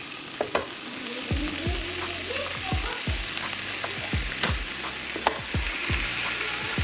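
Raw sausage patties sizzling on a hot Beautiful XL electric griddle as more are laid down one by one, with a few sharp clicks as they land. A low, repeated thumping comes in about a second in.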